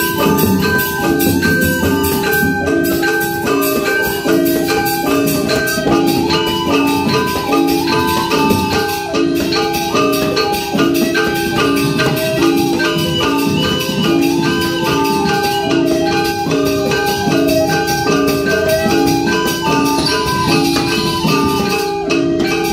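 Balinese gamelan music: bronze mallet instruments play a fast stepping melody over a steady held low tone, with a two-headed kendang drum and clashing cymbals.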